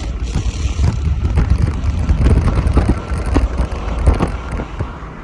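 Vehicle noise buried under heavy, uneven wind buffeting on the microphone, a loud irregular rumble with no clear engine note.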